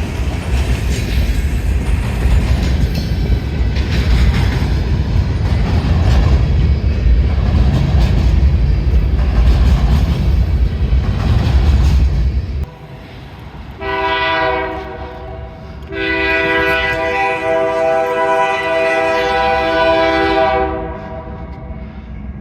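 A train passing close, with heavy low rolling rumble and wheel clatter, which stops abruptly about two-thirds of the way through. Then a diesel locomotive's multi-tone air horn sounds a short blast followed by a long one.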